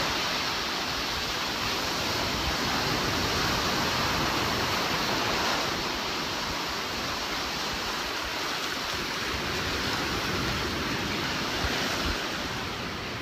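Surf breaking and washing up the beach at high tide, a steady rush of waves that swells and eases a little.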